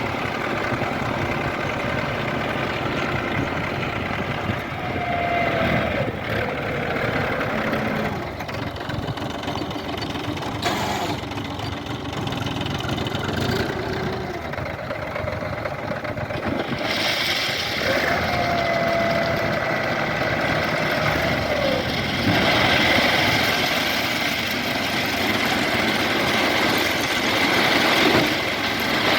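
Diesel engines of a backhoe loader and tractors running while gravel is loaded. A whining tone falls in pitch twice, and there are a few sharp knocks about a third of the way in.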